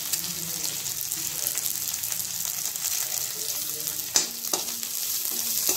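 Green chillies and chopped garlic sizzling in hot oil in a black kadai as a tempering, a steady hiss, with a short knock about four seconds in.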